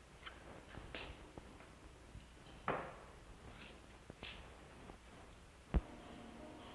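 Faint scattered clicks and knocks of hands working a metal mechanism. One sharp click comes near the end, followed by a faint steady hum.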